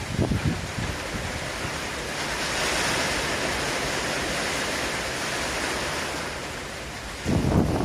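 Strong gusty wind: a steady rushing hiss, with heavy wind buffeting on the microphone in the first second and again from about seven seconds in.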